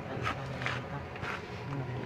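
Faint man's voice talking in the background, with a few brief light noises.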